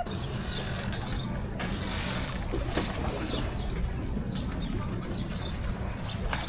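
Small birds chirping in short, repeated calls over a steady low outdoor rumble, with a brief hiss in the first two seconds.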